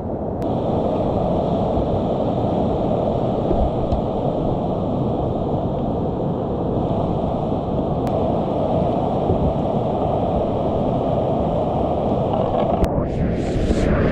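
Whitewater rapids rushing steadily. Near the end come a couple of loud splashes as the kayak heads into the white water.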